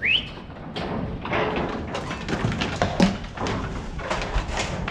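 Irregular knocks and thumps of rams being moved about in the sheep yards, with a short rising squeak at the very start.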